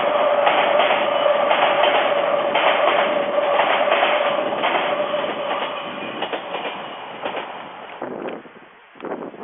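Odakyu Line electric train passing close by, its wheels clicking rapidly over the rails under a steady whine. It fades away over the last few seconds as the train moves off.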